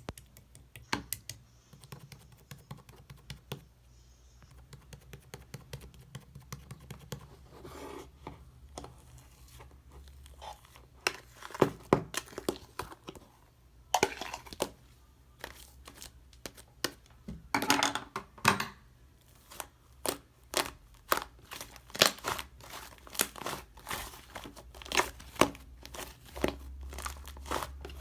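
Slime being squished and stretched by hand, giving a string of sharp sticky pops and crackles that come thicker and louder in the second half.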